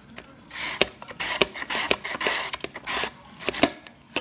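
Korean radish being shredded on a julienne mandoline slicer: a run of rasping strokes, each about half a second long, with sharp clicks between some of them.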